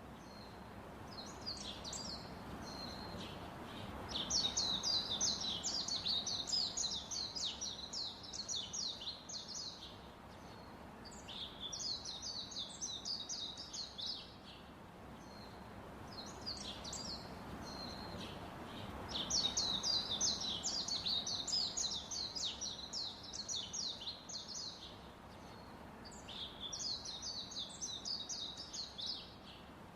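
Bird song: bouts of rapid, high chirping a few seconds long, repeating with short pauses between, over a steady background hum.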